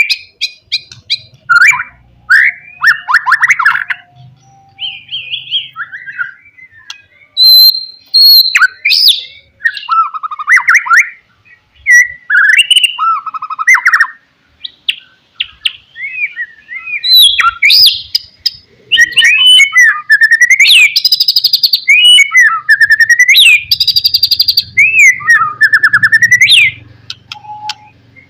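White-rumped shama (murai batu) singing loudly: a varied run of whistled phrases, rapid chattering trills and sharp clicks, turning near the end to a string of long rising sweeping notes.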